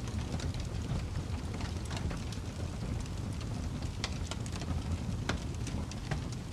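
Wood fire burning in a fireplace, crackling and popping irregularly over a low, steady rumble of the flames.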